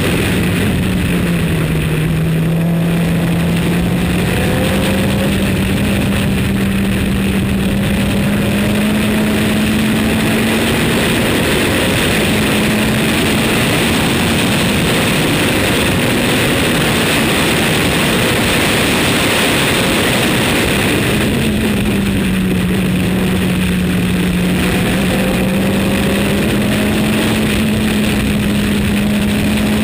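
Formula Renault 2.0 race car's engine running hard at speed, heard from the cockpit under a heavy rush of wind and road noise. Its pitch dips about a second in and again about 21 seconds in, then climbs slowly as the car accelerates.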